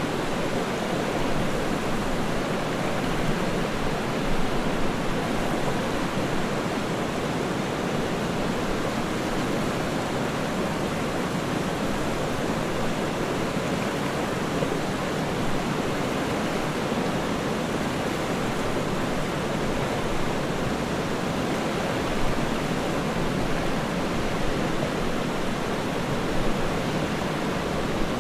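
Waterfall: a steady, unbroken rush of falling, splashing water.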